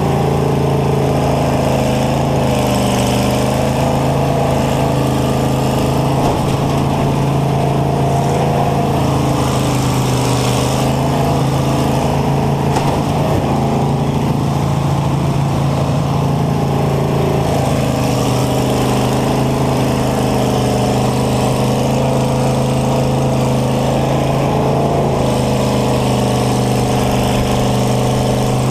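A combine harvester's engine running loud and close, heard from inside its cab. It is a steady drone whose pitch wavers slightly as throttle and load change.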